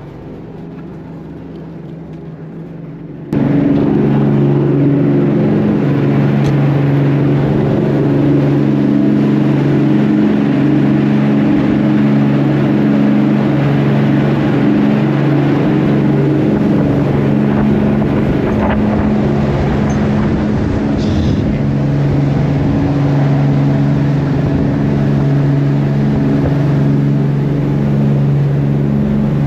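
A fishing boat's engines and hull running at high speed with a steady drone. The drone is quieter for the first few seconds, then becomes suddenly much louder about three seconds in and stays steady.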